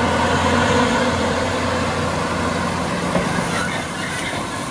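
Case IH Magnum 400 tractor's diesel engine running steadily under load as it pulls an air drill through corn stubble, a low hum over a wash of machine noise. It eases off slightly near the end as the tractor moves past.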